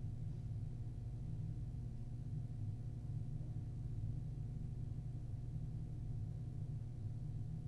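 Steady low hum of room tone in an empty room, with no other sounds.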